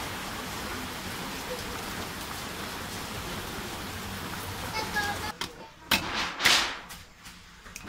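A steady hiss that cuts off about five seconds in, followed by a few sharp clanks and a brief scraping rattle as an aluminium pressure-cooker lid is picked up and handled.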